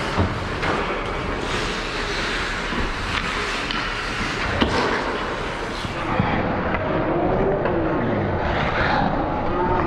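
Youth ice hockey play: a steady scraping of skate blades on the ice, with a few sharp clicks of stick on puck, and faint voices calling out in the second half.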